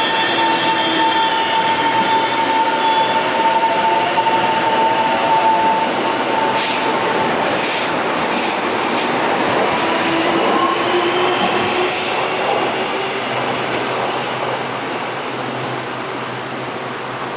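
Taiwan Railway train rolling past, with a steady rushing rumble and a high squeal that fades out about six seconds in. The train noise then eases down slowly.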